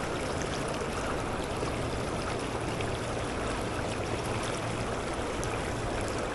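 Rain-swollen creek running high: a steady rush of fast-flowing water with no breaks or changes.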